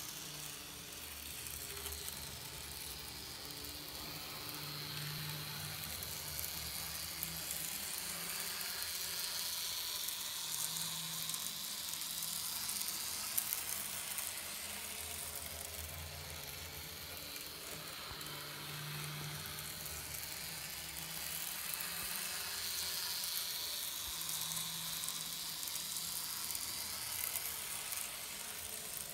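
Small-scale model train running around a loop of track: a steady high whir and hiss of the locomotive's motor and wheels on the rails, swelling twice as the train comes round the loop and fading between.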